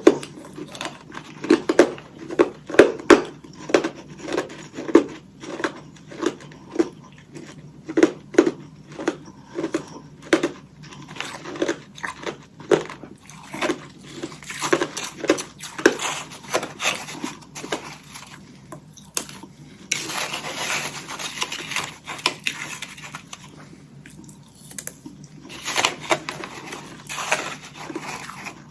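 Hollow ice sticks coated in freezer frost being bitten and chewed close to the microphone: a run of sharp, irregular crunches, with a longer stretch of dense crackly crunching about two-thirds of the way through and another short one near the end.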